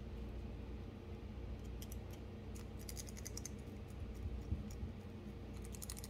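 Light, quick metallic clicking in a few short runs as the small metal parts of a balisong knife's pivot are handled and worked during reassembly, over a faint steady low hum.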